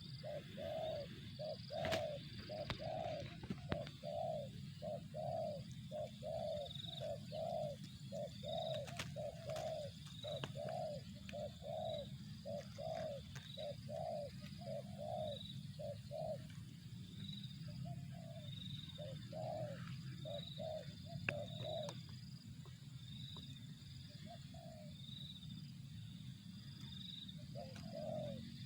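Spotted dove (tekukur) cooing: a long run of quick low coos, about two to three a second, that breaks off about two-thirds of the way through into a few scattered coos with pauses between. A faint high chirp repeats about once a second throughout over a low hum.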